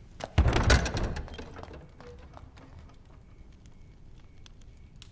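A heavy door slamming shut about half a second in, its low boom dying away over about a second.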